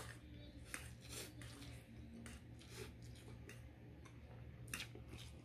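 A person eating pancit canton instant noodles: quiet, irregular slurps, chewing smacks and short clicks, about half a dozen in all, over a low steady hum.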